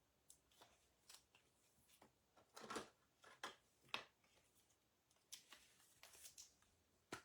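Faint, scattered scrapes and clicks of trading cards being handled and slid against each other, louder for a moment between about two and a half and four seconds in.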